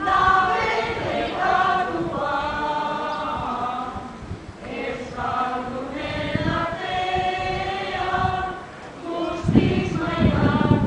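A group of people singing together unaccompanied, holding long sung notes.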